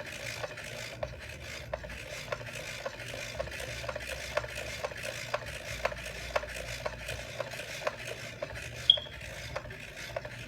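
Skip Dr manual disc repair system being hand-cranked: its buffing wheel rubs against a wet DVD with a steady rasping hiss and regular ticks, about three a second, as the disc slowly turns to buff out scratches. A brief sharp squeak about nine seconds in.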